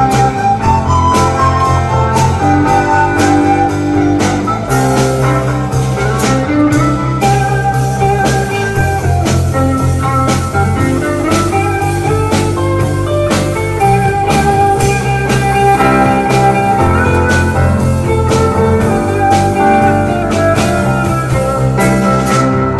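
Live band music: a group of recorders plays the melody over electric guitar, bass guitar and a drum kit keeping a steady beat.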